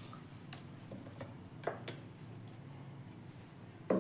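Faint light taps and scrapes of a steel mixer-grinder jar against a plastic bowl as ground keema paste is scraped out of it, with a sharper knock near the end.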